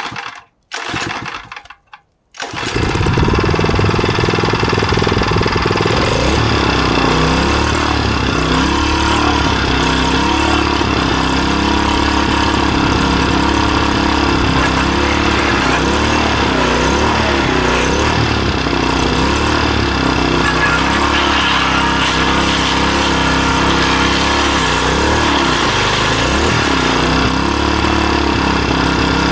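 Small 3.5-horsepower gas engine pull-started: two short pulls, then it catches about two and a half seconds in and runs steadily, its speed wavering slightly up and down.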